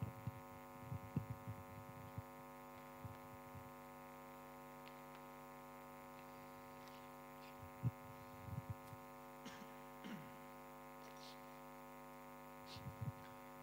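Faint, steady electrical mains hum made of many evenly spaced tones, with a few soft knocks and thumps, the sharpest about eight seconds in.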